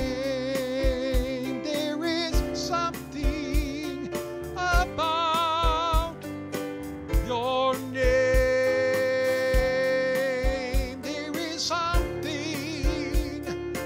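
A man singing a gospel song with vibrato, holding long notes, to his own playing on a Yamaha stage keyboard, over a steady beat.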